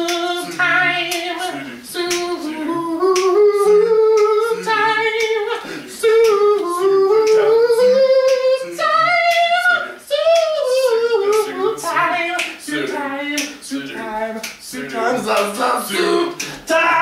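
Two young men singing a cappella doo-wop: a lead melody in long held, sliding notes over short low notes repeated underneath.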